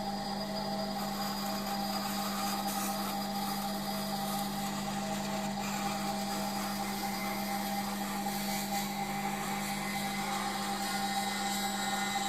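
Small electric power tool running steadily at constant speed, its motor giving a steady hum, with a few faint scrapes.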